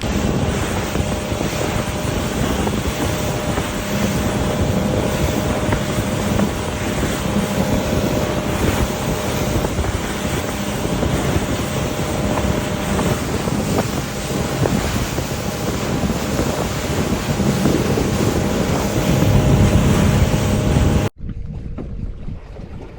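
Fishing boat running underway: a steady engine drone under heavy wind buffeting the microphone and rushing water. About 21 seconds in, it cuts suddenly to a much quieter scene.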